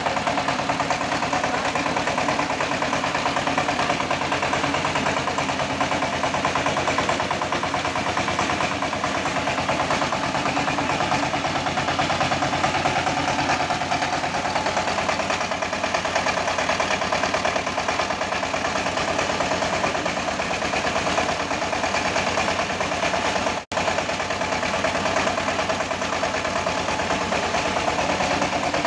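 Single-cylinder diesel engine of a two-wheel tractor running steadily, driving a rice huller that is milling paddy. The sound cuts out for an instant about three-quarters of the way through.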